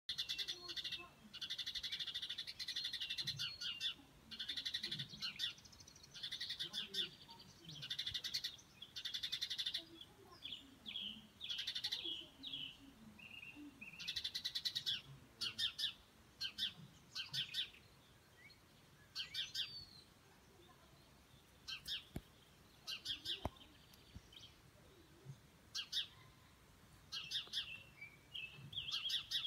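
Songbirds singing: high, rapid trills and chirps in phrases a second or two long, with short pauses between.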